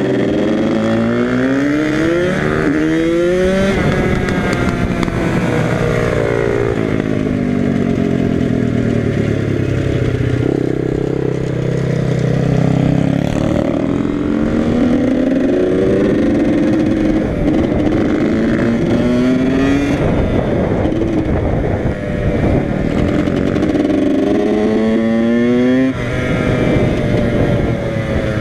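Yamaha YZ85's two-stroke single-cylinder engine under way. Its revs climb in pitch and drop back several times as the bike is ridden along.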